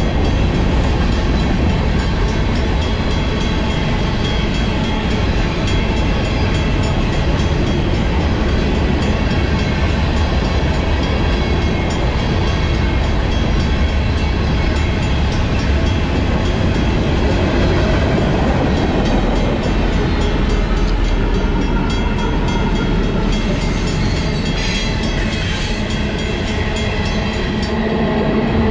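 Freight train cars, covered hoppers and then tank cars, rolling steadily past on the rails. Over them, the crossing's Western-Cullen-Hayes mechanical bell rings on in an even beat.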